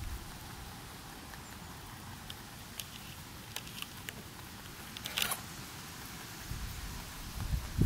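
Rabbit chewing a blade of grass: faint, scattered crisp clicks over a quiet outdoor background, strongest a little past the middle. A low rumble rises near the end.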